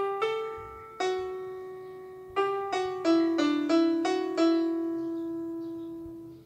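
Electronic keyboard with a piano voice, playing a slow single-line melody of about ten notes one at a time, the last note held and fading out.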